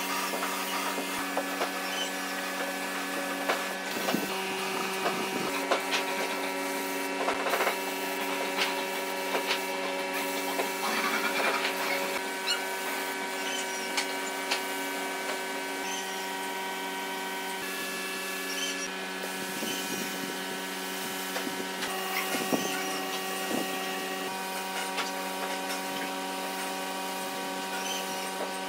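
Gravity-feed air spray gun spraying finish: a steady hiss of compressed air over a constant mechanical hum, with scattered small clicks and knocks.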